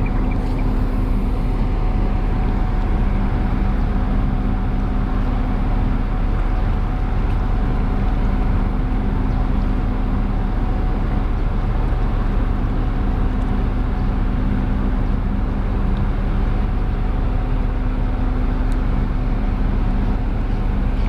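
An engine running steadily at an unchanging speed: a continuous drone with a low hum and a faint constant whine over it.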